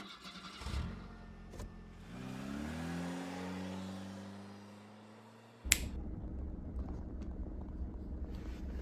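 Manual car's engine rising in pitch and then holding a steady note. About halfway through, a sharp click is followed by a sudden switch to a rough, low rumble.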